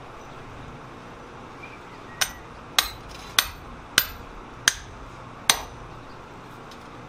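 Six sledgehammer blows on a drift held in tongs, driving it through a hole in a red-hot forged swage block. Each is a sharp metallic strike with a short ring, about two every second, the last coming after a slightly longer gap.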